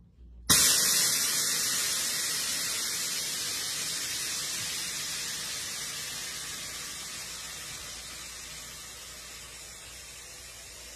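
Air-ride suspension letting air out of its bags: a loud hiss that starts suddenly about half a second in and slowly fades as the pressure drops and the car settles lower.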